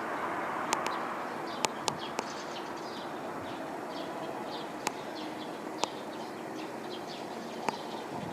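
Airbus A320 jet noise slowly dying away as the airliner moves off, leaving a steady distant rumble. Small birds chirp repeatedly over it, with a few sharp clicks.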